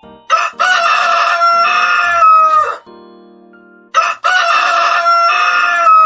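Rooster crowing twice, each crow a long, held cock-a-doodle-doo that drops in pitch at the end.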